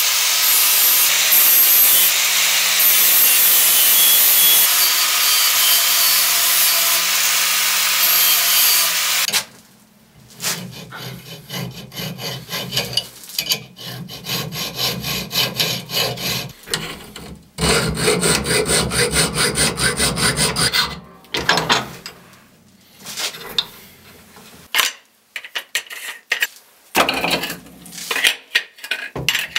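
Angle grinder with a flap disc grinding a steel bar held in a vise: a steady hiss over the motor's hum, cutting off about nine seconds in. Then a hand file rasps across the steel in short, repeated back-and-forth strokes with pauses between runs.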